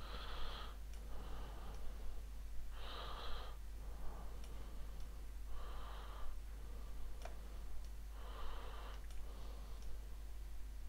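A man breathing close to the microphone, a breath about every three seconds, with a few faint clicks in between.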